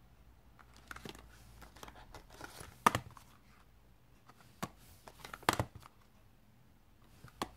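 Stamp sets in hard clear plastic packs handled and set down on a table: scattered clicks and plastic knocks with light crinkling. The loudest knocks come about three seconds in and a cluster about five and a half seconds in.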